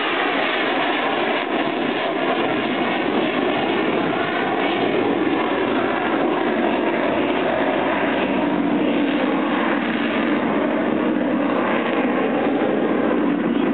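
Steady, loud jet engine noise from an F-4 Phantom II's twin General Electric J79 turbojets as the fighter flies past.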